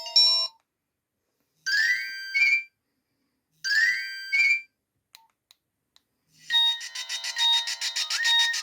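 Nokia 1280 ringtones playing. A melody ends just after the start. Then a short electronic phrase of quickly rising notes sounds twice, about two seconds apart. After a pause, a different tone begins near the end, a steady electronic melody pulsing about five times a second.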